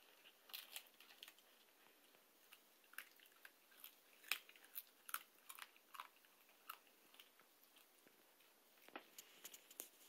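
Siberian husky puppy gnawing a dried salmon skin chew: faint, irregular crunches and clicks of teeth on the hard treat.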